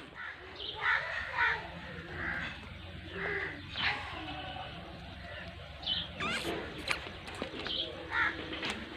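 Birds calling, short chirps and calls every second or so, over a steady low background hum.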